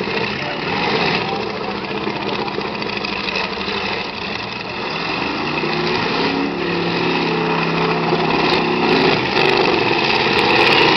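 Engines of several demolition derby cars running and revving together in a loud, rough din. A little past the middle, one engine holds a steady high rev for a few seconds.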